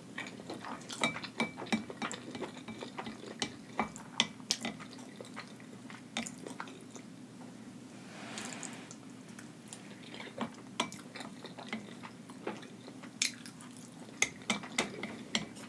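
Close-miked mukbang eating sounds: ramen noodles being chewed with many small wet mouth clicks and smacks, and a brief breathy rush about eight seconds in.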